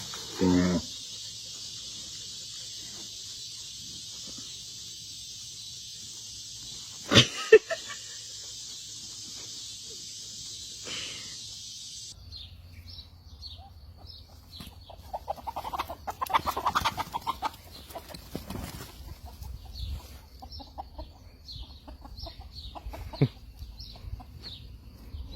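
Chickens: short high chirps repeating and clucking, following a first half with a steady high hiss, a brief call and a couple of sharp knocks.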